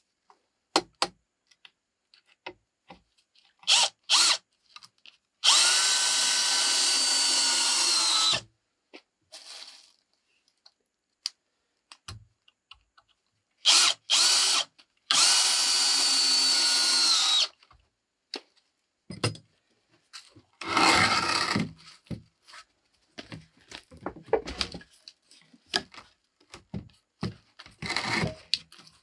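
Cordless drill whining in two runs of about three and two seconds, short trigger blips before each, as it works into a pine board; its pitch drops just before each run stops. In between and afterwards come scattered knocks and clatter of wood being handled.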